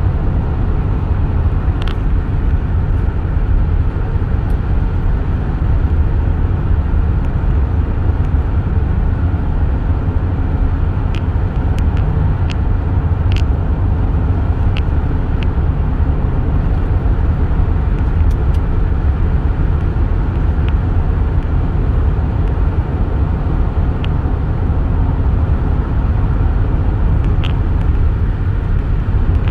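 A car cruising at highway speed, heard from inside the cabin: a steady low rumble of road and tyre noise. A few short ticks are scattered through it.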